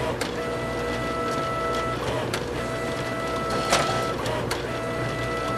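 CNC machining centre cutting a knurl with a side tool. A steady whine of several fixed pitches breaks off and resumes about every two seconds, with scattered clicks over a running-machine hiss.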